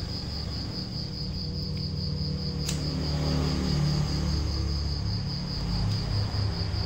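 A cricket chirping in an even trill of about five pulses a second, over a low steady hum.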